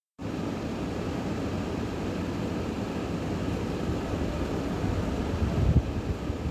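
Shredded young papaya stir-frying in a wok with a little added water: a steady sizzling noise as a spatula tosses it, with a brief low bump near the end.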